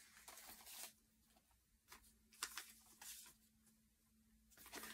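Near silence: faint rustling and a few soft taps of paper and card being handled, over a faint steady hum.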